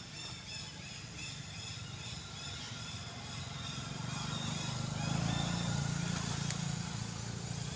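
A motor vehicle engine running nearby, its low hum growing louder about halfway in and easing slightly near the end. Faint high chirping goes on in the background.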